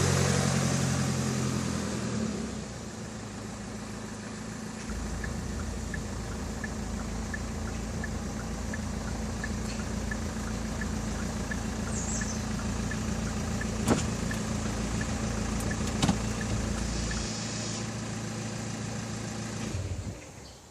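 Hyundai SUV engine idling. It runs louder at first and settles about two seconds in. A light ticking about twice a second runs through the middle, and two sharp clicks come a couple of seconds apart near the end.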